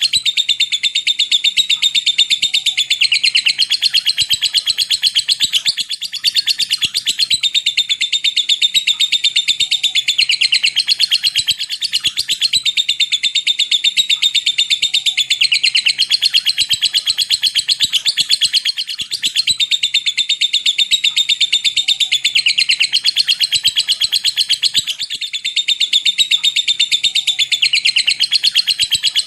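Lovebird giving a long, continuous, very fast chattering trill, the 'ngekek panjang' prized by Indonesian bird keepers, with short breaks about every six seconds.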